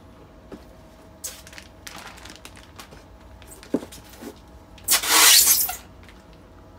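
Plastic packaging rustling and crinkling as packs are handled and lifted out of a styrofoam box, with a sharp click just before four seconds in and the loudest crinkle at about five seconds, lasting about a second.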